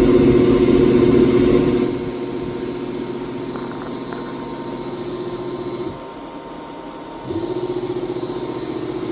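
Test-bench machinery running with a steady, high-pitched whine over a hum. It drops away about six seconds in and starts up again about a second later.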